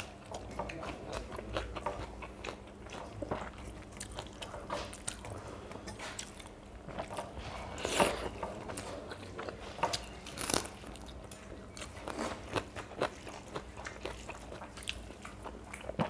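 Close-up chewing and crunching of mouthfuls of panta bhat (water-soaked rice) eaten by hand, with wet rice squished and mixed by fingers in steel plates. Many small clicks and crackles, a few sharper ones, the loudest about eight seconds in.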